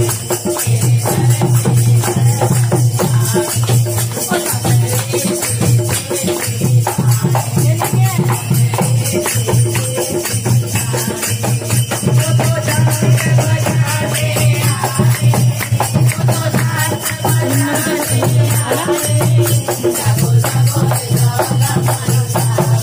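Devotional kirtan music: singing over a steady pulsing bass beat, with constant jingling, rattling hand percussion.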